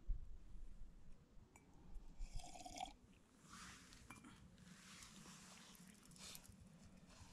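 Faint, scattered rustles and small handling noises over a low steady hum.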